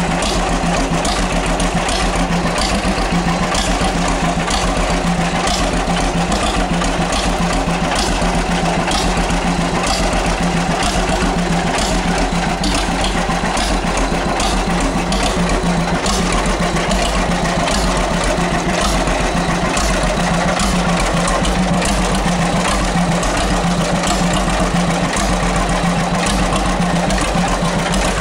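1939 John Deere H tractor's two-cylinder engine idling steadily, with an even, regular beat.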